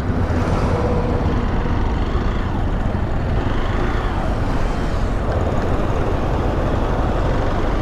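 Hero XPulse motorcycle ridden at a steady speed on a highway: the single-cylinder engine runs on under a constant rush of wind and road noise.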